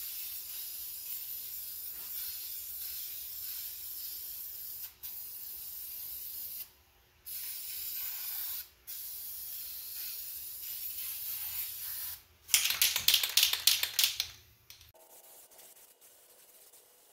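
Aerosol spray can of Duplicolor acrylic enamel hissing in long bursts with a few short pauses. About twelve seconds in the spraying stops and the can is shaken, its mixing ball rattling rapidly for about two seconds.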